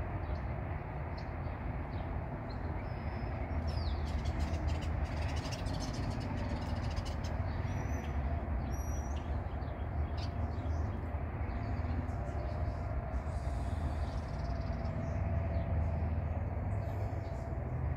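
Steady low outdoor rumble with a few faint, short high bird chirps scattered through.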